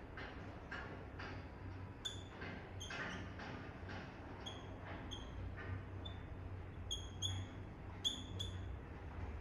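Dry-erase marker writing on a whiteboard: soft scratching strokes, then about a dozen short, high squeaks of the felt tip from about two seconds in.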